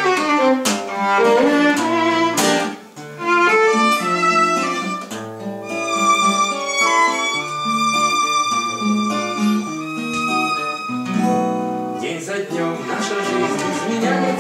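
Violin and acoustic guitar playing an instrumental passage: a bowed violin melody over strummed guitar chords, with longer held notes in the middle.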